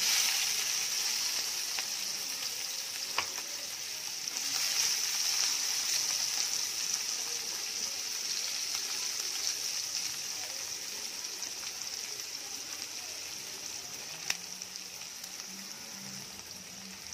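Chopped onions frying in hot oil in a pan: a steady sizzle that starts abruptly as they go in and slowly grows quieter, with a couple of sharp pops of spattering oil.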